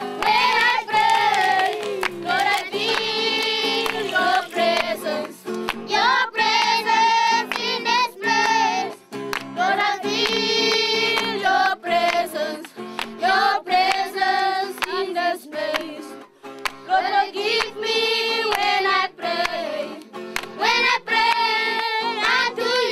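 Background music: a song with a sung melody.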